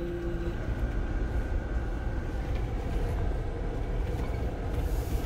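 Jeep Wrangler's engine running at low revs while the Jeep crawls slowly in low gear over slickrock, heard inside the cab as a steady low rumble.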